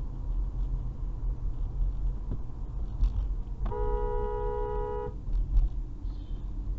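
Car horn sounding two tones at once, held for about a second and a half around the middle, over the steady low rumble of engine and road noise inside a moving car. It is a warning honk at a vehicle cutting in ahead.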